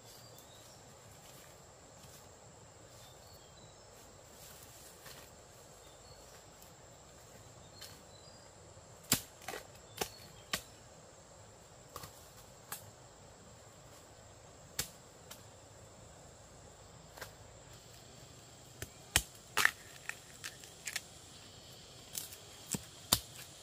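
Sharp cracks and knocks, scattered irregularly, starting about nine seconds in and coming more often near the end, over a faint steady high whine.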